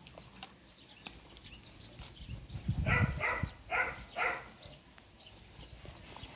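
Four short pitched animal calls in two quick pairs, about a second apart, over quiet outdoor background.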